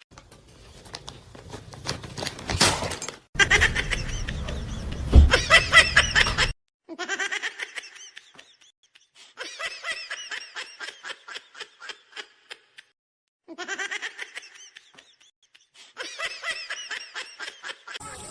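High-pitched laughter coming in quick rhythmic bursts. It repeats in four runs, each cut off abruptly, after a few seconds of noisier sound at the start.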